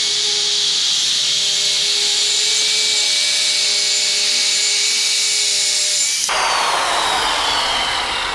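Skilsaw circular saw cutting through wood for about six seconds. The trigger is then released and the blade winds down with a slowly falling whine.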